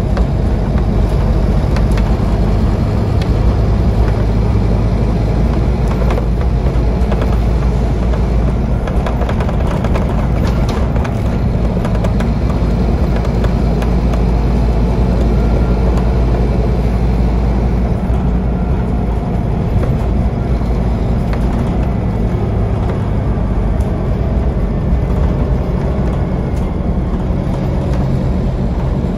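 Scania OmniCity double-decker bus's five-cylinder diesel engine running under way, heard from inside the passenger saloon as a steady low drone, with light rattles from the bodywork.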